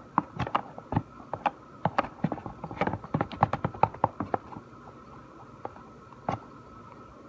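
A stick stirring slime in a container: irregular clicks and taps, several a second, for the first four seconds or so, then just a couple of isolated ones.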